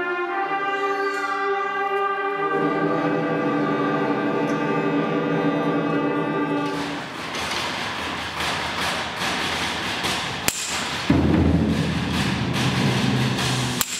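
A school concert band, brass prominent, holds a sustained chord that ends the piece about seven seconds in. An audience then applauds, growing louder from about eleven seconds in.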